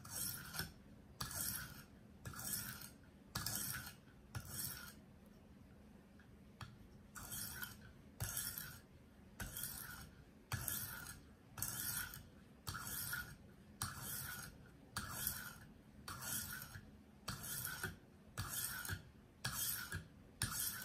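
A 140-grit sharpening stone on a KME guided sharpener rasping back and forth along a paring knife's edge under light pressure, about two strokes a second, with a pause of about two seconds some five seconds in. The coarse stone is raising a burr along the full length of a dull blade.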